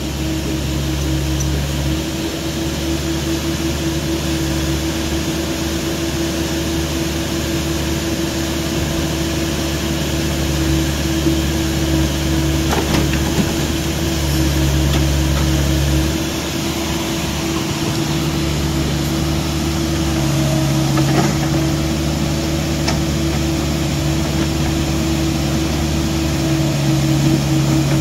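Hydraulic excavator's diesel engine running steadily while digging, its low drone shifting in strength every few seconds as the load changes. A few sharp knocks come through, most around the middle and later on.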